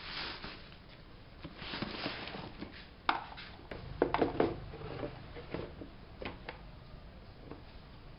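Scattered taps and knocks of objects being handled on a hard surface, with a sharp click about three seconds in and a short cluster of louder knocks just after four seconds.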